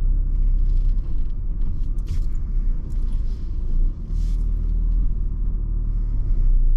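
Ford Tourneo Custom's diesel engine running at low revs as the van moves off slowly, heard from inside the cabin as a steady low rumble.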